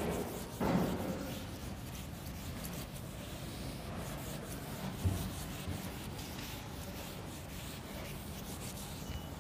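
Chalkboard eraser being rubbed back and forth across a chalkboard, wiping off chalk: a continuous scrubbing with a louder stroke just under a second in and a light knock around five seconds in.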